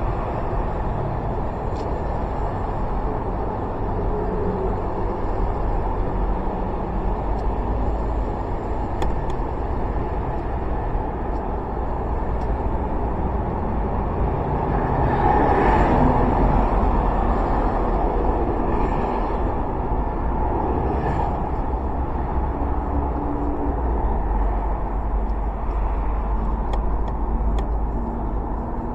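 Honda PCX125 single-cylinder scooter being ridden: steady engine and road noise with wind rumble on the microphone and traffic around it, swelling louder for a couple of seconds about halfway through.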